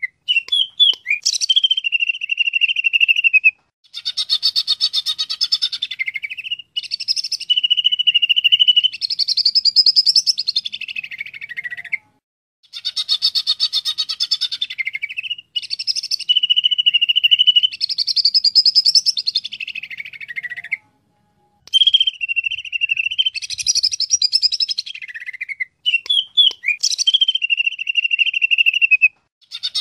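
Cucak ijo (green leafbird) singing: phrases a few seconds long of rapid, varied chattering notes and clear held whistles, broken by short pauses.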